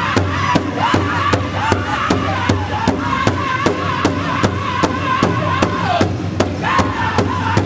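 Powwow drum group singing in unison, several drummers striking one large powwow drum together in a steady, fast beat. High-pitched voices hold a sung line over the beat, dropping out briefly about six seconds in and coming back in.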